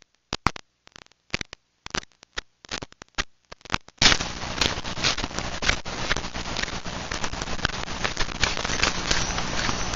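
Crunching and rustling of footsteps on dry leaf litter with handling noise from a hand-held camera: sparse sharp crackles at first, then about four seconds in a sudden switch to a continuous crackling, rustling noise.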